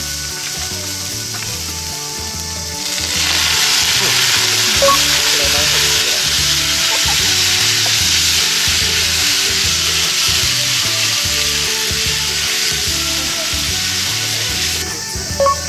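Yakisoba noodles sizzling in a hot pan as a little water is splashed over them. The hiss jumps up loudly about three seconds in and holds steady while chopsticks toss the noodles, then drops back just before the end.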